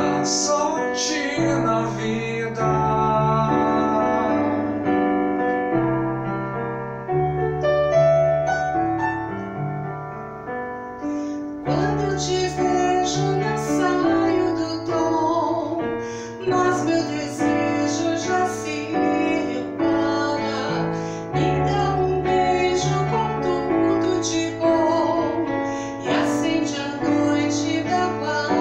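Yamaha electronic keyboard playing an instrumental passage of a slow pop song: sustained chords over a moving bass line, with a melody line on top.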